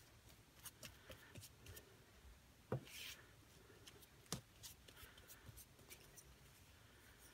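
Faint handling sounds of a cotton fabric scrap being positioned and smoothed on a paper book page: soft rustles with a few light clicks, two of them sharper, a little under 3 s and about 4.5 s in.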